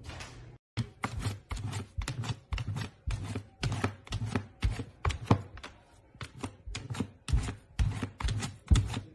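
Sharp taps and knocks in quick irregular succession, about three a second, from a puppy pawing at a window.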